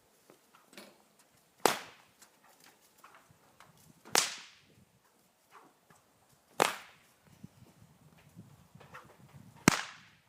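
A whip cracking four times, about every two and a half seconds, each a sharp, loud crack.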